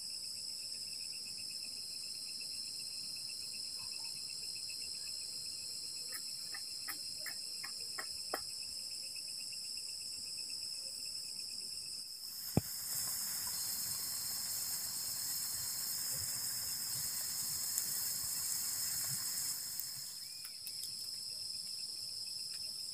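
Night-time chorus of crickets and other insects: steady high-pitched trilling, with a faster pulsing chirp beneath it. A little after six seconds a short run of about seven quick chirps sounds. About halfway through a single click is heard, and the chorus grows louder and fuller for about eight seconds.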